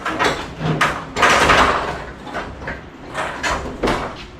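A string of sharp knocks and a longer scraping clatter starting about a second in, from parts being handled while the crew gets hold of the truck bed to lift it off.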